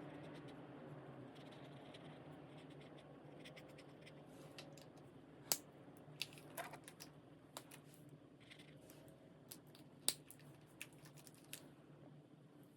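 Alcohol marker tips stroking and scratching faintly across coloring-book paper, with a few sharp clicks, two of them louder, about halfway and near the end, over a low steady hum.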